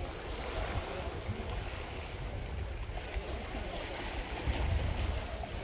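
Small sea waves lapping and washing against the rocky, concrete shoreline in a steady wash of water noise, with wind buffeting the microphone as a low rumble.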